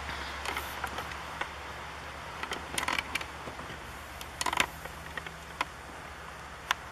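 Handling noise from a handheld camera rig: a steady low hum under scattered light clicks and creaks, with a small cluster of knocks about four and a half seconds in.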